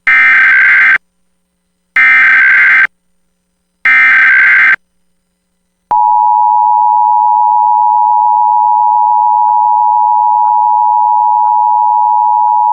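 Emergency Alert System broadcast signal: three short bursts of screeching digital SAME header data tones about a second apart, encoding the alert's details. After about a second's gap the steady two-tone EAS attention signal begins, announcing the alert, and holds.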